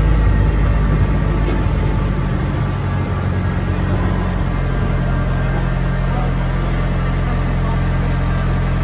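Tram's diesel engine running steadily with a low hum, heard from on board the tram.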